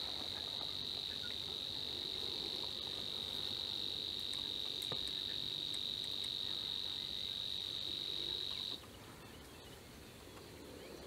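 A steady, high-pitched buzzing trill held without a break, cutting off abruptly near the end, of the cricket or insect kind.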